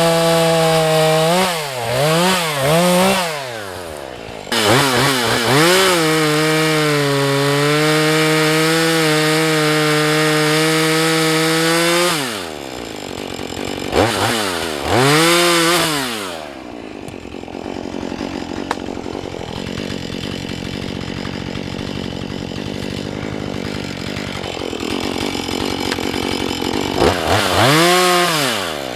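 Husqvarna 435 two-stroke chainsaw being blipped up and down, then held at high revs for several seconds with its pitch sagging a little under load, as in a cut. It then drops back to idle, with further short revs of the throttle.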